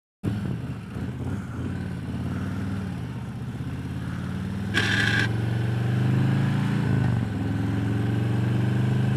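Harley-Davidson Road Glide's V-twin engine running under way, its pitch rising and falling with the throttle. A short hiss cuts in about five seconds in.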